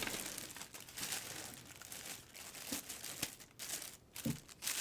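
Packaging being handled and unwrapped by hand: irregular crinkling and rustling with short sharp crackles.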